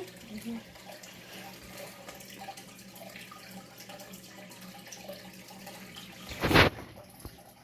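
Water running and trickling steadily at a low level, with one short loud noise about six and a half seconds in.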